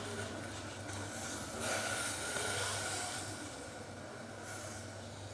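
Jaggery melting in boiling water in a steel saucepan, bubbling and hissing as it cooks down into syrup. It swells louder for a second or so about one and a half seconds in, over a steady low hum.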